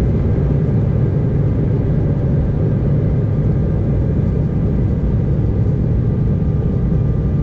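Steady low rumble of an Embraer E-Jet's turbofan engines and rushing air, heard from inside the passenger cabin, with faint steady whining tones above it.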